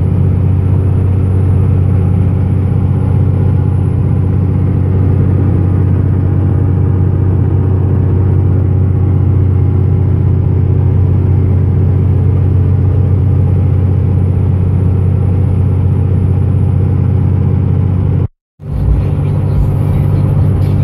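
Dodge Ram's 5.9 L Cummins turbo-diesel inline-six cruising at highway speed, heard from inside the cab as a steady low drone with tyre and road noise. The sound cuts out for an instant near the end and comes straight back.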